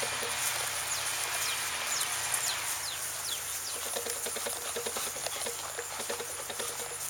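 Outdoor rural ambience: many short, high, falling chirps, growing denser after about three seconds, over a steady high hiss, with rapid soft knocks underneath.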